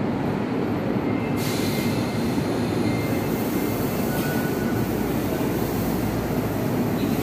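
Steady rumble and hum of an underground platform, with a Sendai Subway Namboku Line train standing at the platform and its onboard equipment running.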